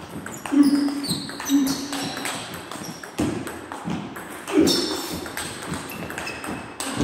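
Table tennis rally: the plastic ball clicking back and forth off the rackets and the table at an uneven pace, with a few harder strokes standing out.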